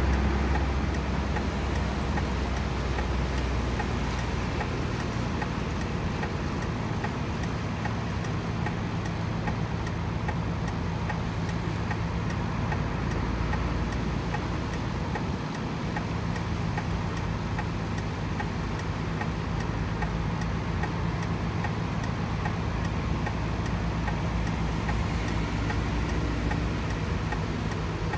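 Motor vehicle engine running steadily with a low hum, with a faint regular ticking over it.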